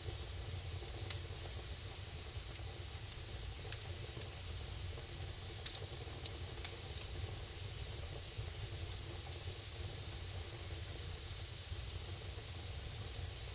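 Wood fire burning in a fireplace: a steady hiss with scattered sharp crackles and pops, several close together about six seconds in.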